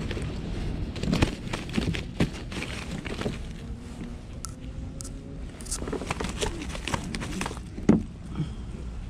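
Close handling noise as a tautog is unhooked in a lap: rain gear and a burlap rag rustling and crinkling, with scattered clicks and knocks and one loud thump near the end.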